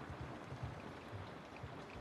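Steady rain falling through forest trees: an even hiss of rainfall with scattered heavier drops landing.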